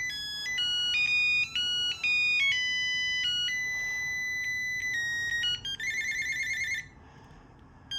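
Panasonic KX-TG210 cordless handset playing a ringtone melody through its small speaker: plain electronic beep notes stepping up and down in pitch. About six seconds in it changes to a fast trilling ring tone that stops abruptly a second later.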